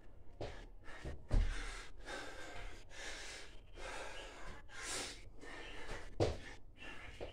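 A man breathing hard, gasping and blowing between burpee reps, with thuds of his hands and feet landing on a rug-covered floor; the loudest thud comes about a second and a half in, another about six seconds in.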